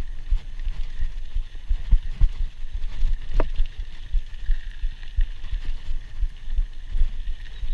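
Scott Scale 960 hardtail mountain bike rolling over a bumpy dirt trail, picked up by a chest-mounted action camera: irregular low thumps and rattles as the bike rides over bumps, over a steady hiss of tyres on dirt, with one sharp click about three and a half seconds in.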